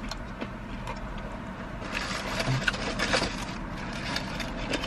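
Steady low hum inside a car cabin, with a cluster of rapid clicks and crackles about two to three seconds in from people eating and handling their food.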